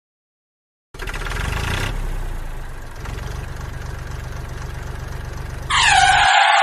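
A vehicle engine starts about a second in, then idles with an even chugging and cuts off abruptly near the end. A loud phone ringtone begins just before the engine stops.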